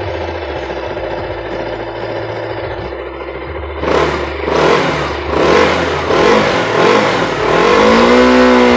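KTM Duke 200's single-cylinder engine idling steadily, then revved in about five quick throttle blips from about four seconds in, and held at higher revs near the end.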